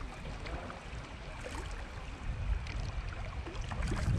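Water lapping and trickling around an inflatable kayak being paddled on a river, with a few small splashes and drips from the paddle blades. A low rumble underneath grows louder in the second half.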